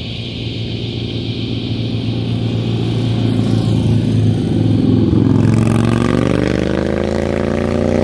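Motorcycle engine growing louder as the bike approaches and comes close, then a motorcycle's engine note climbing in pitch as it accelerates near the end.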